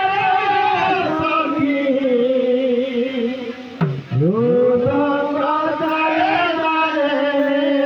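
Sambalpuri kirtan music: a singing voice holds long, drawn-out notes with a slight waver. Just before the middle, the pitch dips briefly and glides back up.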